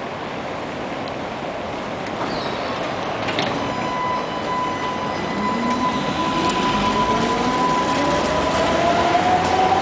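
Tatra T3 tram pulling away from a stop: a steady high whine comes in about three seconds in, then the traction motors' whine climbs steadily in pitch as it gathers speed, over the rumble of wheels on the rails.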